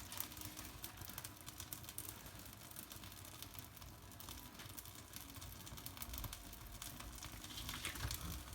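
Bark kindling catching fire in a fireplace, crackling faintly with a quick, irregular patter of small pops and ticks.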